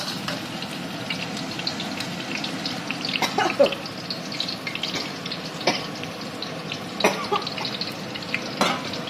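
Lemongrass, shallots, chilli, ginger and garlic sizzling in hot oil in a pan, stirred with a spatula that scrapes against the pan several times.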